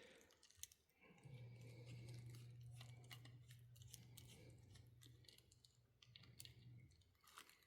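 Near silence: a few faint, light clicks of small parts being handled, over a faint low hum that starts about a second in and stops near the end.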